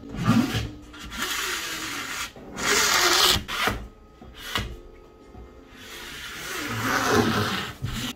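A large banner sheet being handled and slid across a work table: a series of rubbing swishes, each a second or so long, with a couple of light knocks.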